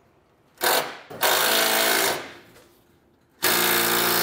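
Power driver spinning a socket extension to drive a self-tapping screw up into a truck's steel frame rail, in short runs: a brief burst about half a second in, a run of about a second, then a longer steady run starting near the end.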